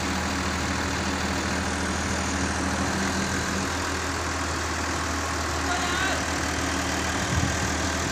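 The diesel engine of an XCMG 260-ton mobile crane running steadily at an even, low pitch.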